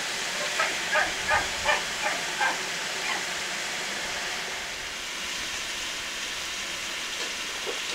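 A series of short animal calls, about three a second, during the first three seconds, then stopping, over a steady hiss.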